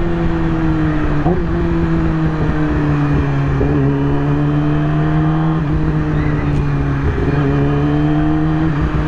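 2020 Yamaha YZF-R6's inline-four engine running at steady, nearly constant revs while the bike is ridden, with wind rushing over the microphone.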